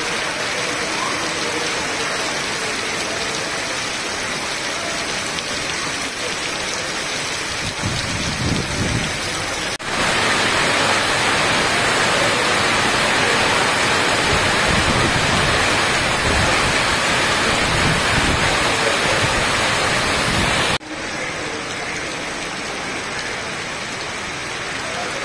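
Heavy rain falling, a steady hiss. About ten seconds in it abruptly gets louder, with low rumbling gusts, then drops back about ten seconds later.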